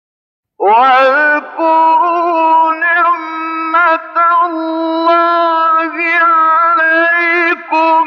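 After about half a second of silence, a male Qur'an reciter's voice enters in melodic recitation. It holds long, drawn-out notes on a steady pitch, ornamented with wavering turns, and breaks off briefly a few times.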